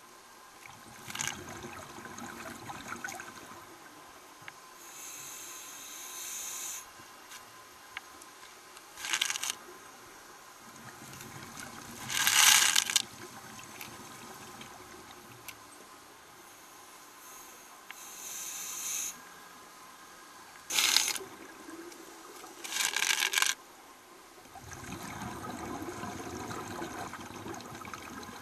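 Scuba diver breathing through a regulator underwater: hissing inhalations and short bursts of bubbling exhalations every few seconds, the loudest about twelve seconds in.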